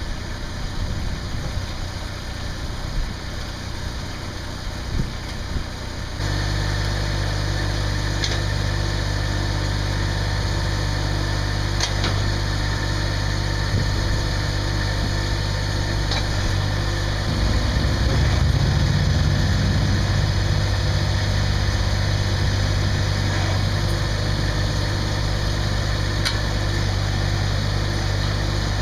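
Massey Ferguson GC2610 sub-compact tractor's small diesel engine idling steadily; it comes in abruptly about six seconds in after rougher, uneven noise, and swells a little higher and louder for a couple of seconds about two-thirds of the way through.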